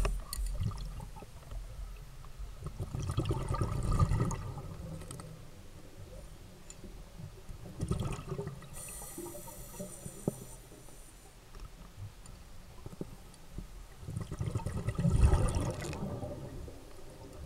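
Muffled underwater sound picked up by a submerged camera: water moving and bubbling against it, swelling three times over the stretch.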